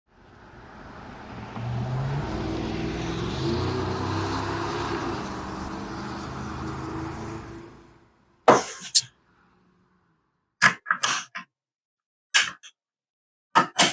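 A passing motor vehicle, swelling up over about two seconds and fading away near eight seconds. It is followed by a string of short, sharp knocks.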